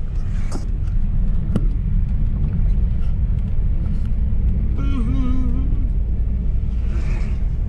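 Steady low engine and road rumble heard inside the cabin of a moving car, with a couple of clicks in the first two seconds and a brief wavering tone about five seconds in.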